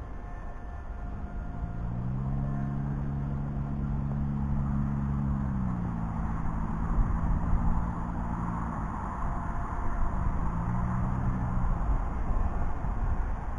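A motor droning with a steady pitch that rises about two seconds in and falls back near six seconds, then sounds again briefly near the end, over low rumble from wind on the microphone.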